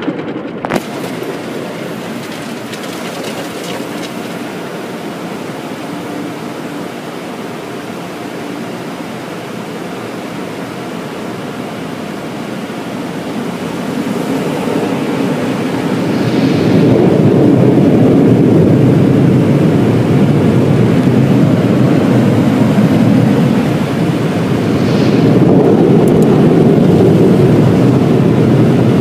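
Tunnel car wash heard from inside the car: a steady rush of water spray on the body and windshield, then from about sixteen seconds in the louder, deeper rush of the air dryer blowers, which dips briefly and comes back near the end.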